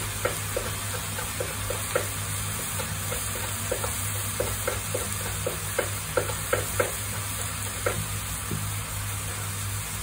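Spinach and garlic sizzling in a frying pan while a wooden spatula stirs them, knocking on the pan two or three times a second; the knocks stop near the end. A steady low hum runs underneath.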